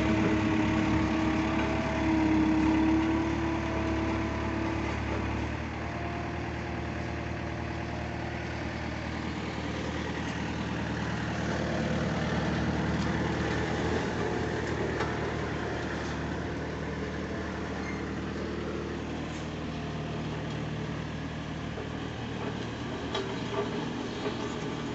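Road roller engine running steadily. It is louder for about the first five seconds, then settles to a lower, even hum.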